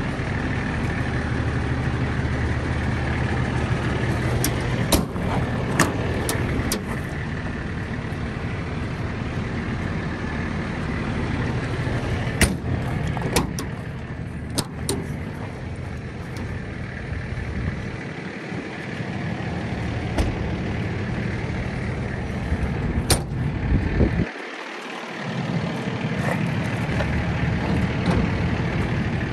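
A truck engine idling with a steady low rumble, broken by several sharp clicks and knocks. About four-fifths of the way through, the rumble drops out for about a second.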